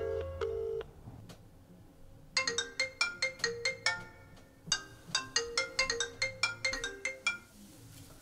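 Smartphone ringtone: a quick tune of struck, marimba-like notes on an incoming call to an iPhone. It starts about two seconds in and stops shortly before the end as the call is picked up. A brief held musical chord sounds at the very start and cuts off.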